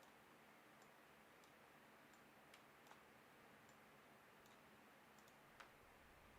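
Near silence with a few faint, sharp computer mouse or keyboard clicks, the clearest about five and a half seconds in.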